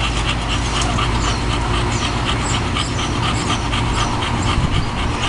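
English bulldog panting in a rapid, rhythmic run, over a steady low rumble.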